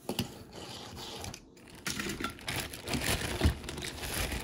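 Rustling and crinkling mixed with many small clicks and knocks as hands rummage for the next loose die-cast toy car.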